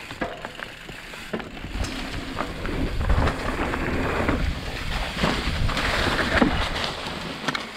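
Wind rushing over a helmet or bike-mounted action-camera microphone, mixed with mountain bike tyres rolling and rattling over dirt as the rider speeds through a jump line. The rush builds about two seconds in and eases near the end.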